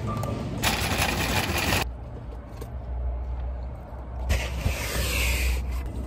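Grocery boxes and cartons being handled and set into a car's cargo area, with two spells of rustling and scraping, about a second in and again past the four-second mark, over a steady low rumble of vehicles.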